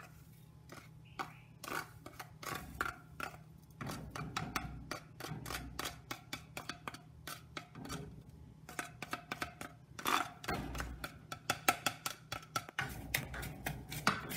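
Black plastic spoon scraping and tapping dry spices off a plastic tray into a clay pot, then stirring them around the pot: a long run of light clicks and scrapes that grows busier about nine seconds in.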